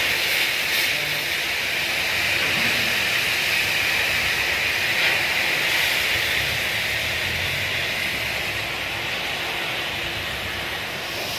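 Steady, loud hissing noise across the drydock, easing slightly toward the end.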